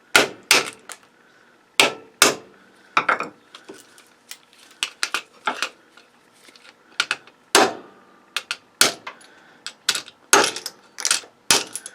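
Hand hammer striking a circuit breaker again and again to break its case around the rivets: about twenty sharp blows at an uneven pace, some with a brief metallic ring.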